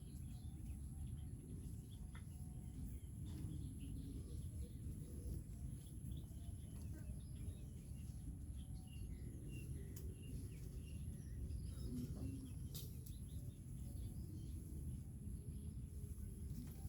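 Faint outdoor ambience: a steady low rumble with scattered faint bird chirps and a thin, steady high whine.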